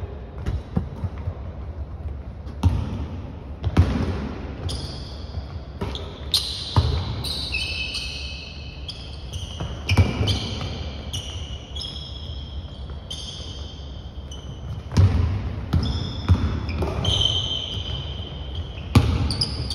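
Basketball thudding irregularly on a hardwood gym floor, with sneakers squeaking in short high chirps as players run and cut. The sounds echo in a large hall.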